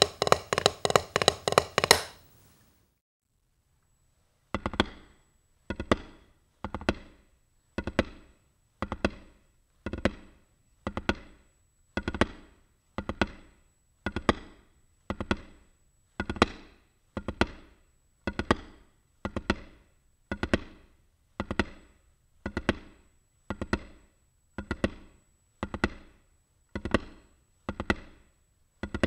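Drumsticks on a rubber practice pad playing the drag ruff, a double stroke before a single stroke with the hands alternating. A fast, louder run of strokes stops about two seconds in. After a short pause the ruffs come back slower and even, about one a second.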